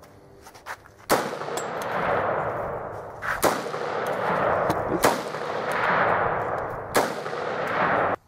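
AR-15-style rifle fired four times, about two seconds apart, each shot followed by a long echo. The sound cuts off abruptly near the end.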